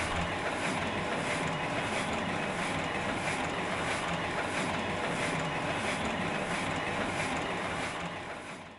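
Machinery running steadily with a faint regular clatter about twice a second, fading out near the end.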